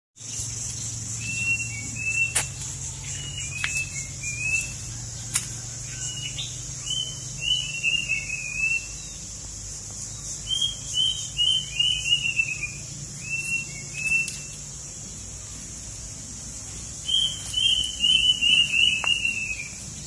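A songbird singing bursts of short, falling whistled notes, a few seconds at a time with pauses between, which the uploader takes for an oriental magpie-robin, perhaps mixed with other birds. A steady high-pitched insect drone runs underneath, and a couple of sharp clicks sound in the first few seconds.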